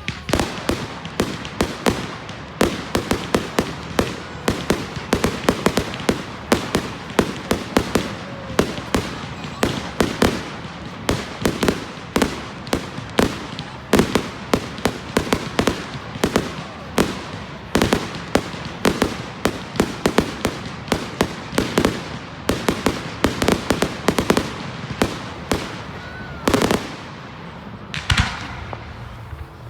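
Fireworks bursting in a dense, continuous barrage of sharp bangs and cracks, several a second, with a whistle that falls in pitch near the end.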